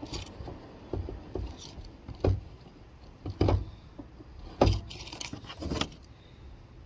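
Propane regulator being twisted and pushed into the fuel inlet of a Coleman Fold N Go two-burner stove: an irregular string of sharp clicks and knocks, the loudest a little past two, three and a half and just under five seconds in.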